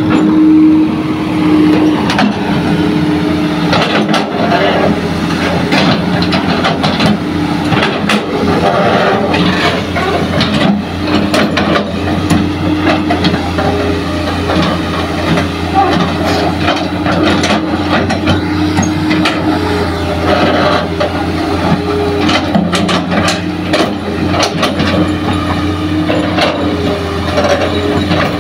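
Hitachi hydraulic excavator's diesel engine running steadily under load as the bucket digs into a bank of earth, with repeated knocks and scraping scattered through the drone.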